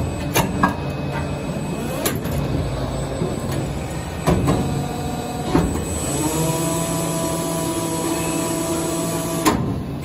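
TEDERIC D250 servo injection molding machine running a test cycle: a steady mechanical hum with a few sharp clicks and knocks. From about six seconds in, a steady whine with several pitches sets in and holds until it stops with a click near the end.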